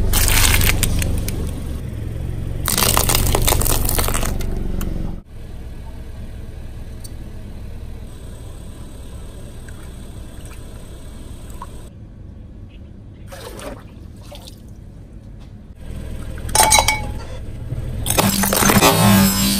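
Car tyre rolling over and crushing objects, in several separate crushes joined by abrupt cuts. There is loud crunching near the start and again about three seconds in, then a quieter stretch, then sharp cracks about seventeen seconds in and more loud crushing near the end.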